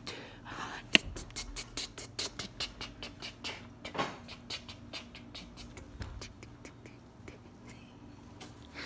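A quick, even run of sharp clicks or taps, about four a second, like a percussion beat, fading out after about five seconds, with one loud click about a second in. A faint steady low hum runs underneath.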